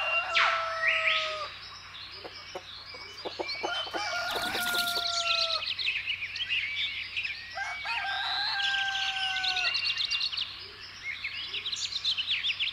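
A rooster crowing three times, each crow long and held with a falling end, a few seconds apart, while small birds chirp steadily.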